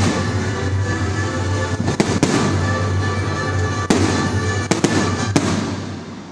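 Aerial fireworks display: several sharp bangs of shells bursting over continuous crackling, dying away near the end.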